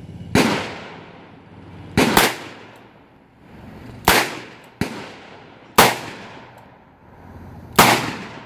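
A run of gunshots, about seven sharp reports one to two seconds apart, two of them almost together and one weaker, each trailing off in a short echo. Among them is a Smith & Wesson Model 19 revolver firing .38 Special and .357 Magnum rounds.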